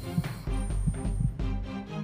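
Tense background score with a pulsing low beat about twice a second under sustained tones.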